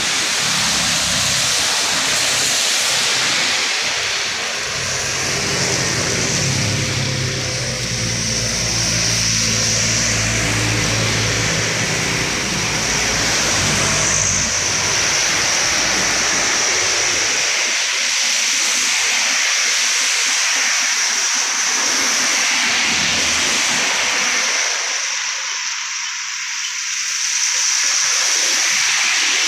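Traffic passing on a wet road: tyres hissing on the wet asphalt under a steady engine noise. A heavier vehicle's engine runs lower and louder from about 4 to 12 seconds in.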